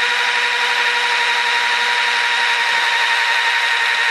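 Electric drill running at a steady speed with a constant whine, turning the oil pump of a rebuilt Studebaker 289 V8 through a shaft in the distributor hole to prime the engine's oil system under pressure.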